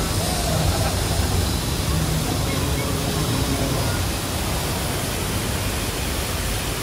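Torrent of water rushing and crashing down artificial canyon rocks in a theme-park flash-flood effect: a loud, steady rush with a low rumble underneath.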